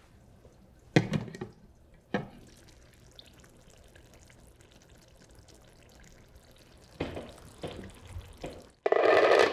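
A slow cooker's lid knocks against the pot as it is lifted off about a second in, with a second, lighter knock just after. Near the end comes a loud sniff of under a second as someone smells the food in the pot.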